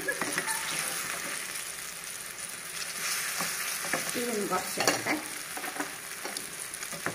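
Battered jackfruit fritters deep-frying in a nonstick pan of oil, with a steady sizzle. A perforated steel skimmer clinks and scrapes against the pan a few times as the fritters are turned.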